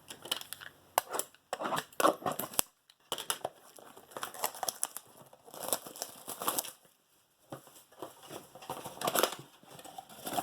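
Trading-card blaster boxes being opened by hand: irregular tearing of cardboard and crinkling of the card-pack wrappers, with brief pauses between handlings.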